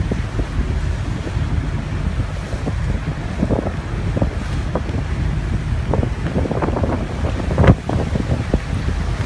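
Gale-force wind buffeting the microphone on an open ferry deck, a heavy irregular rumble over the rush of rough sea. One hard gust about three-quarters of the way through is the loudest moment.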